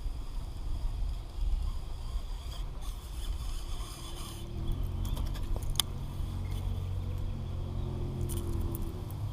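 A low, steady engine hum comes in about halfway and holds, over a low rumble, with one sharp click shortly after the hum begins.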